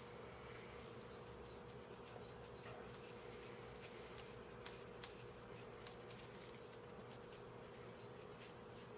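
Near silence: a faint steady hum, with scattered faint ticks of a screwdriver driving an M3 screw into a 3D-printed plastic puzzle core.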